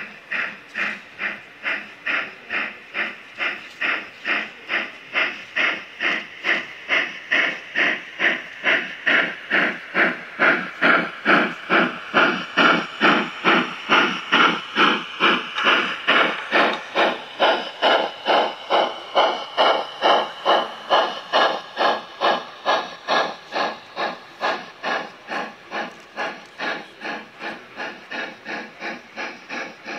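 Gauge 1 (1:32 scale) model steam locomotive chuffing at a steady, even beat, each chuff a short hiss of exhaust. The beat grows louder as the engine passes close, loudest about halfway through, then fades.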